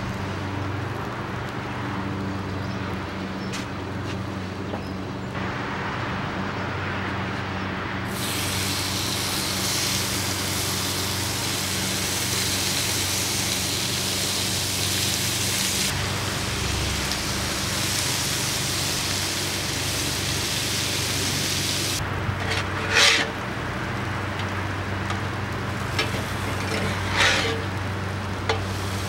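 Thin-sliced steak sizzling on a very hot skillet, a steady hiss over a low hum. The hiss swells about eight seconds in, eases off later, and a couple of short spatula scrapes follow near the end.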